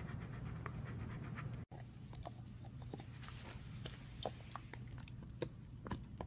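Siberian husky panting rapidly. After a cut about two seconds in, a husky gnaws on a chew stick, with scattered irregular clicks and crunches of teeth on the stick.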